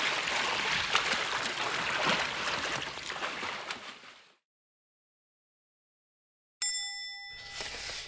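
Water splashing and rushing for about four seconds. After a pause, a short bright ringing ding sounds near the end, followed by a brief hiss.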